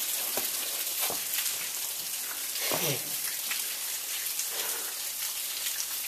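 Waterfall water splashing onto rock, an even steady hiss, with a few faint ticks.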